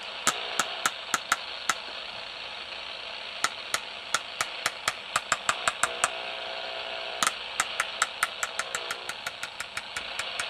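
GE 3-5979 handheld CB radio hissing with receiver static while its rotary channel knob is turned through the band, a sharp click at each channel step, coming in quick runs of several clicks a second. No station comes through, only the empty-band hiss.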